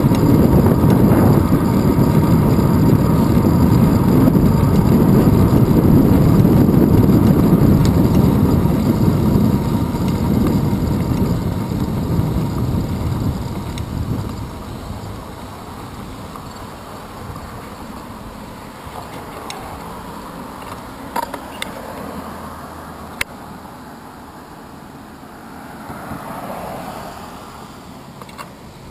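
Wind and road rumble on a handlebar-mounted camera as the bicycle rolls at speed, dying away after about fourteen seconds as the bike slows to a stop. Then quieter street noise, with a few sharp clicks and a car passing near the end.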